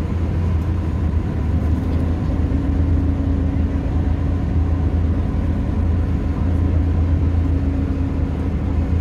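Open motorboat's engine running steadily: a low, even hum, with a higher steady tone joining about two and a half seconds in.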